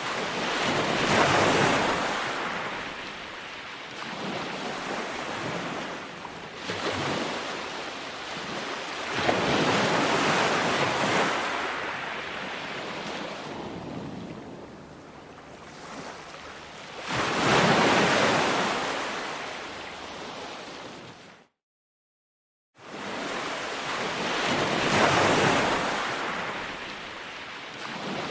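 Ocean surf washing onto a beach, rising and falling in long swells as each wave breaks, one every several seconds. About three-quarters of the way through, the sound cuts out completely for about a second, then returns.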